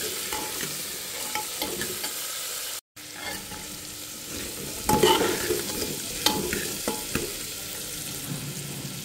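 Jackfruit seeds sizzling in hot oil in an aluminium pressure cooker, stirred with a steel ladle that scrapes and clinks against the pot. The sound cuts out for a moment about three seconds in.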